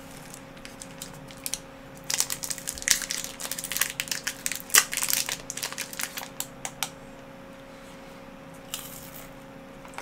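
Candy wrapper being handled and opened, crinkling in a rapid run of sharp crackles from about two to seven seconds in, with a few more near the end.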